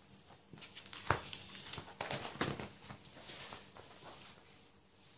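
Plastic pocket pages of a trading-card ring binder being turned by hand: a string of crinkles and small clicks, the sharpest about a second in, then a soft plastic rustle.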